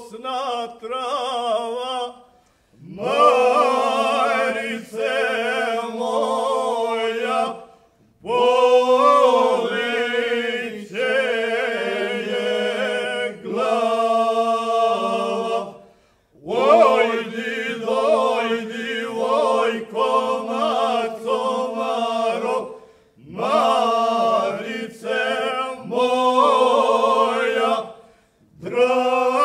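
Men's folk singing group from Banija singing unaccompanied in the old village style, a low drone held under the melody. The song goes in phrases of several seconds, each ending in a short breath pause.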